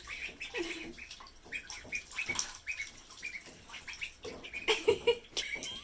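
Ducklings peeping in many short, high calls, several falling in pitch, with splashing of water in a bathtub.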